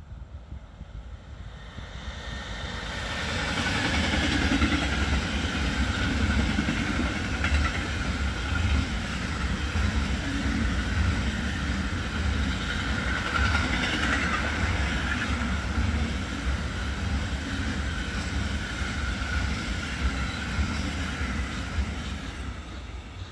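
Intermodal container freight train passing close by: a steady rumble of wagon wheels on the rails with clickety-clack. It builds over the first few seconds and eases off near the end as the last wagons go by.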